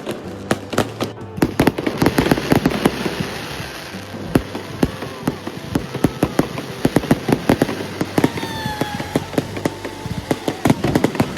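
New Year's fireworks going off in a dense, rapid series of bangs and crackles, with a falling whistle about eight seconds in.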